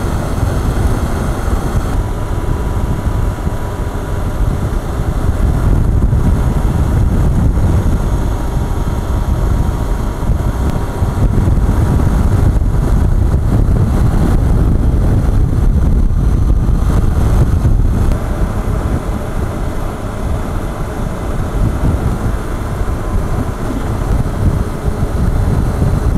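Wind rushing over a helmet-mounted microphone, with the motorcycle's engine and tyres droning steadily underneath while cruising at highway speed.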